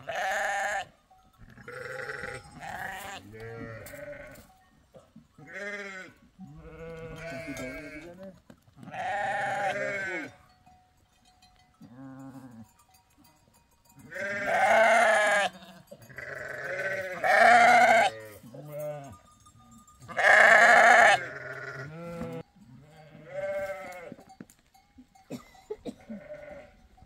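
Goats bleating in a pen, one call after another, about twenty in all, several of them loud and drawn out for about a second.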